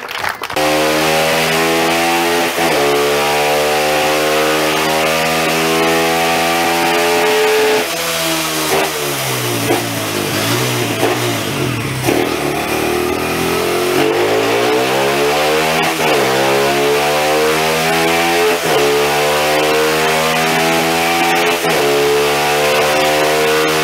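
Motorcycle engine running hard on a dynamometer, revving up through the gears with a drop in pitch at each upshift. About eight seconds in it eases off and winds down, then accelerates again through several more upshifts.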